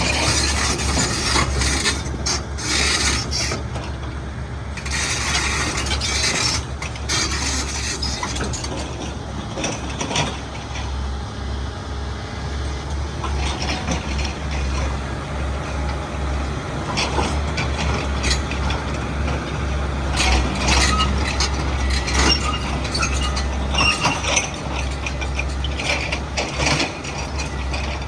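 XCMG 210 crawler excavator working: its diesel engine runs steadily under load, with irregular clattering and hissing bursts over it, busiest near the start and again toward the end.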